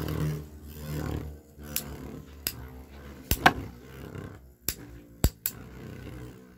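Two metal Beyblade spinning tops, Diablo Nemesis X:D and Big Bang Pegasis F:D, whirring together in a plastic stadium: a steady grinding hum at first, then sharp clacks as their metal wheels collide, about seven of them.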